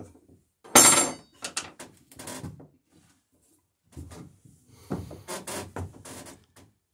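Wooden centerboard being shifted by hand against the dory's timbers: irregular wooden knocks and scrapes, the loudest a squeaky scrape about a second in, then another run of knocks and rubbing from about four seconds in.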